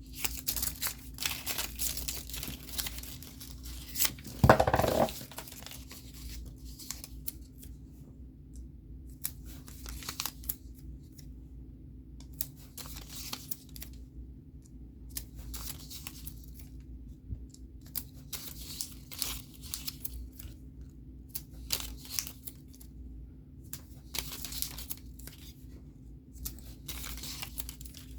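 Paper and sticker sheets being handled: short, irregular bursts of rustling and tearing with quiet gaps. A louder, lower sound of about half a second comes about four and a half seconds in.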